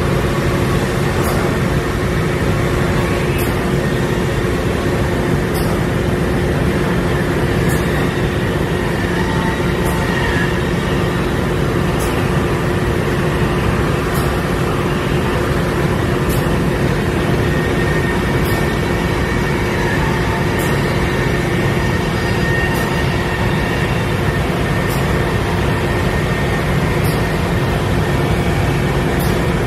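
Robotic CNC trim router running, its spindle bit cutting a composite part: a steady machine noise with a faint hum held at one pitch, and a faint high tick about every two seconds.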